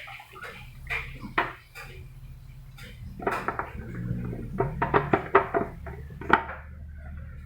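Hard plastic parts of a humidifier being handled, with a string of irregular knocks and clicks that come thickest in the middle and end with a sharp knock near the end, over a steady low hum.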